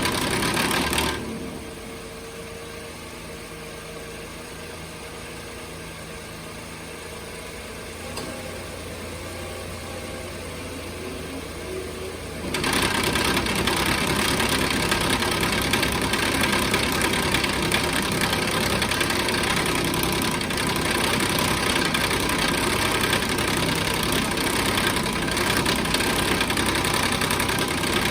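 2014 Nissan Pathfinder engine bay with a loud clanking rattle from the radiator cooling fan, which the owner takes for a broken cooling fan. The rattle drops away about a second in, leaving a quieter engine idle, then comes back loud about twelve seconds in and keeps going.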